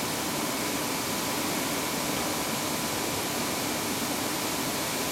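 Steady hiss of industrial machinery and air handling around a large inkjet printing system, with a faint steady high whine.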